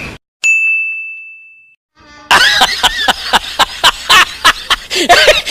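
A single bright ding that starts sharply and rings out, fading over about a second and a half. From about two seconds in, a quick, irregular run of sharp clicks and beats with snatches of pitched sound follows.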